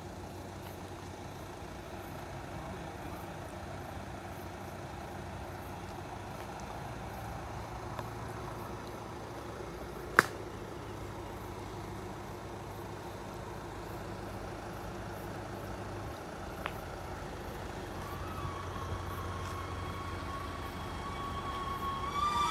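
A low, steady engine hum, with one sharp click about ten seconds in. In the last few seconds a high whine comes in and grows louder.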